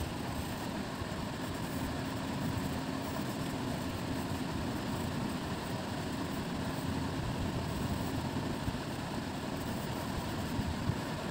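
Steady low rumbling background noise with a faint hum partway through.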